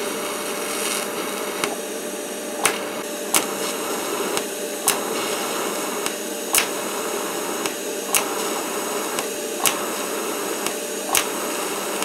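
TIG welding arc burning on steel: a steady hiss with a faint hum, broken by short sharp crackles every second or so.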